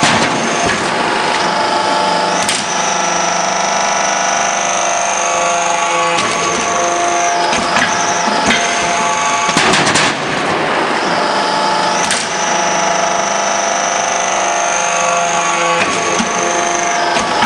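Hydraulic metal-scrap briquetting press running: the steady hum and whine of its hydraulic power unit, with a high whine that drops out and returns as the press cycles. A few sharp metallic knocks come through, the loudest about ten seconds in.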